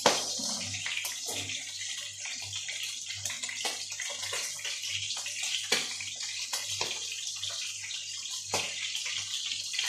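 Steady hiss of running water, over a low hum that pulses about twice a second, with a few faint clicks.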